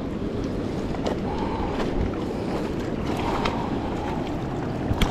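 Steady wind on the microphone over river water lapping against a rocky bank, with a sharp click near the end.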